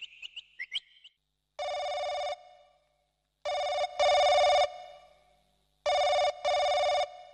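Quick chirping in the first second, then a telephone ringing with a steady electronic tone: one single ring, then two double rings.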